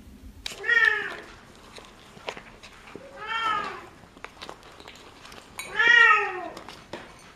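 Kitten meowing three times, each high meow rising and then falling in pitch, with a few short clicks in between.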